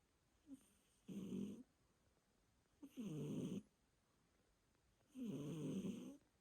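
Domestic cat snoring in its sleep: three snores about two seconds apart, the last one the longest.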